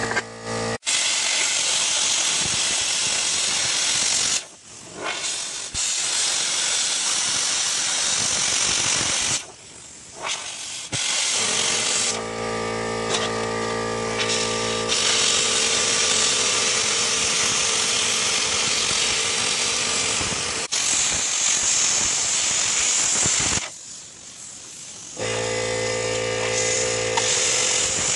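Handheld plasma cutter cutting through sheet steel: a loud, steady hiss of the arc and air jet that drops out briefly three times as the torch stops and restarts. At times a steady pitched machine hum sits underneath.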